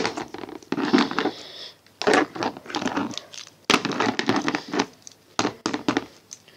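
Plastic wrestling action figures being handled and moved about a toy wrestling ring: irregular rustling and scraping with a few sharp plastic clicks.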